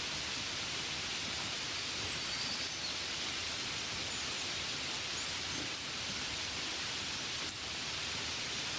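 Steady hiss of gentle rain falling on a window, with a few faint high chirps a couple of seconds in.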